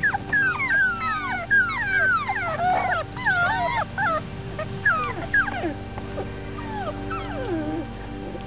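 Five-week-old beagle puppies whining and yipping: many short, high squeals that fall in pitch, packed close together for the first six seconds, then a few more and one long falling whine near the end. Soft background music plays underneath.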